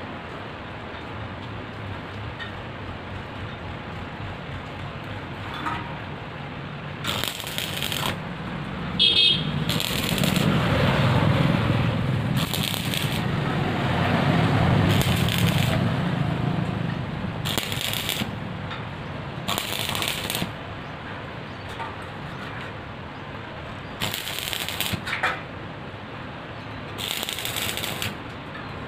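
Stick (arc) welding tacking steel gate bars: about eight short crackling bursts, each around a second long, with a few metal clicks between them and a low hum swelling in the middle.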